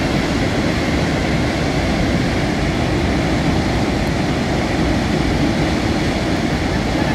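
Muddy flash-flood water and debris rushing down a mountain stream in spate, a deep, steady rush with no let-up.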